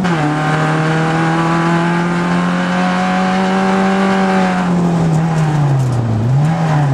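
Rally car engine heard from inside the cabin. The revs drop right at the start, hold steady for about four seconds, then fall away with a short rise in revs about six seconds in.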